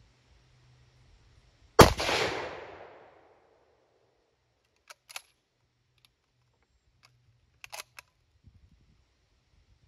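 A single rifle shot from a sporterized Lee Enfield No. 1 Mk III in .303 British, its report trailing off in an echo for about a second. Two brief clusters of sharp clicks follow a few seconds later.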